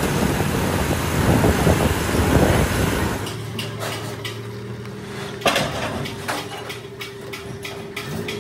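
Road and wind noise of driving on a highway for about three seconds. It then cuts to a small pickup's engine running steadily with a series of metallic clinks and knocks, the loudest about five and a half seconds in.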